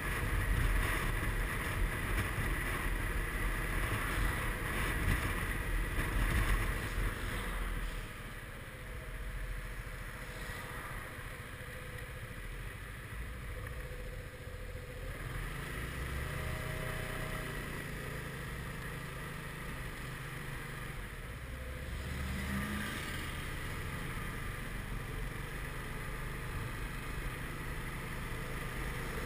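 Suzuki Burgman 400 scooter's single-cylinder engine running under steady wind noise while riding. The wind rumble is strongest for the first several seconds, then drops to a quieter, even level about eight seconds in.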